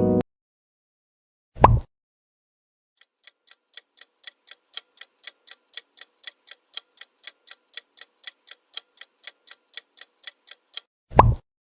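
Clock-tick countdown sound effect: even ticks about four a second for some seven seconds, growing slightly louder. A short whoosh comes before the ticking and another right after it ends.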